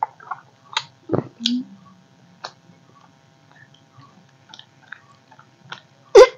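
Close-up mouth sounds of people eating soft rice by hand: wet smacks and chewing in short, irregular clicks, with one louder smack near the end.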